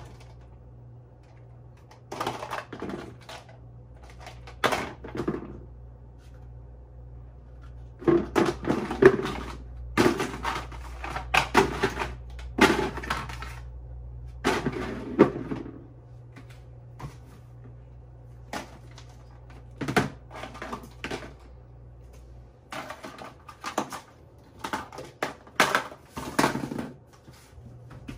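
Plastic baby bottles and pacifier packs being handled on a kitchen counter and dropped into a plastic tub: irregular clacks, knocks and packaging crinkles in bursts, over a steady low hum that stops a little after two-thirds through.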